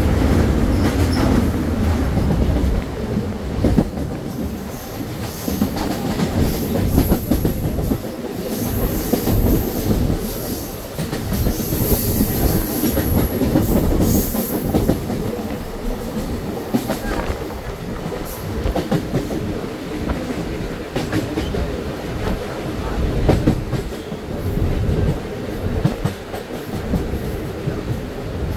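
Mumbai suburban local electric train running between stations, heard from inside the coach: a steady rumble with the wheels clattering over rail joints. A high-pitched wheel squeal rises for a few seconds about halfway through.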